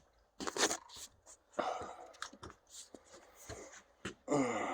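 Cardboard and plastic packaging being handled: scattered rustling, crinkling and light taps. A short voice-like sound comes near the end.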